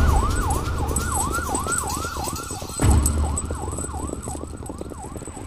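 Police siren in a fast yelp, its pitch rising and falling about three times a second, with a deep boom about three seconds in.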